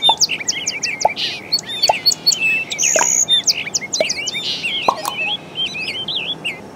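Birds chirping and calling, many quick high-pitched chirps overlapping one another.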